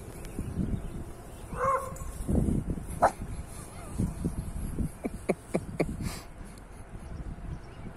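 Puppies at play: a short yip about a second and a half in, a sharper yelp near three seconds, then a quick run of four brief yips a little past the middle.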